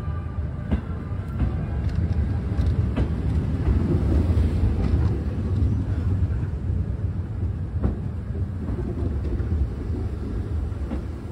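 Electric commuter train rolling slowly alongside the platform: a steady low rumble with a few scattered sharp clicks of the wheels and running gear.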